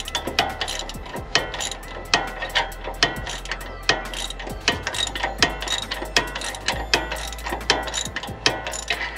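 Hand ratchet wrench clicking in quick runs of strokes as a bolt is turned: several sharp metallic clicks a second, each with a brief ring, in uneven bursts.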